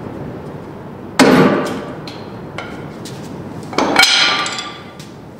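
Two sharp metal impacts from a hammer, about two and a half seconds apart, the second followed by a brief metallic ringing, with a few light clinks between them.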